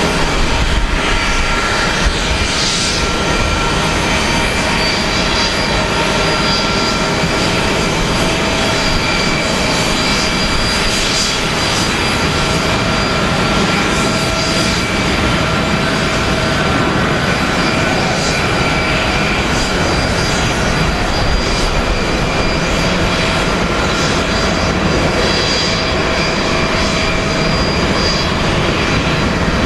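Boeing 777-300's twin turbofan engines running at takeoff power through the takeoff roll and climb-out: a loud, steady rush of jet noise with several steady whining tones on top.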